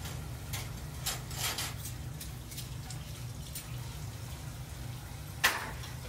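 Raw whole chickens being handled in water in a plastic basin: a few short wet splashes and drips over a steady low hum. About five and a half seconds in there is a single sharp knock, the loudest sound.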